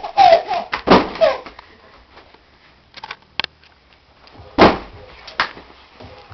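A toddler's high squealing laughter in the first second or so, then after a quieter stretch two sudden loud knocks less than a second apart.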